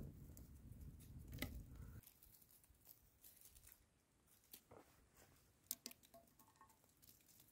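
Faint, scattered crackles and clicks of a small campfire of dry twigs burning and of dry pine cones and twigs being gathered and handled, over a low rumble during the first two seconds.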